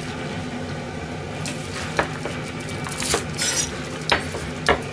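Napa cabbage and a kitchen knife being handled on a plastic cutting board: a few scattered knocks and clinks over a low steady hum.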